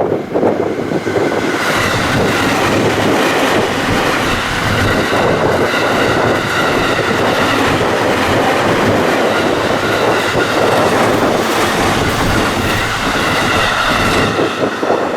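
A train running past close by on the JR Takasaki Line: a steady, loud rumble of wheels on rail with a clickety-clack over the rail joints and steady high tones above it, easing off just after the end.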